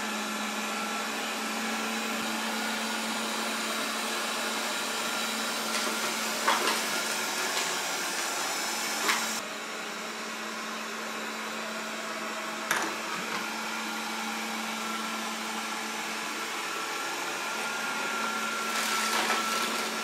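Proscenic 820S robot vacuum running with a steady motor and suction hum, with a few brief clicks along the way.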